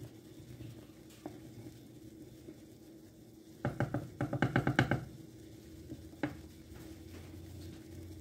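Wooden spoon stirring thick, simmering kadhi in a metal pot: a quick run of about ten knocks and scrapes a little after three and a half seconds in, with single taps near the start and about six seconds in.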